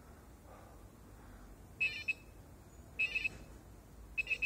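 Short, high electronic beeps from an Arduino's tone output, three of them about a second apart, each set off as breath on a graphene-and-silly-putty resistive sensor changes its resistance. Faint breathing can be heard between the beeps.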